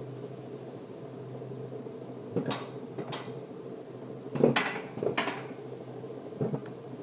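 Wiegand alpine coaster sled being hauled up the lift section of the tubular steel track: a steady low hum with several sharp metallic clanks, the loudest about four and a half seconds in.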